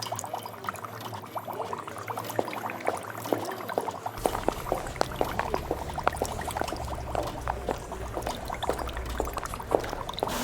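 Laboratory ambience of liquid bubbling in glassware, a stream of quick small pops. A low steady hum comes in about four seconds in.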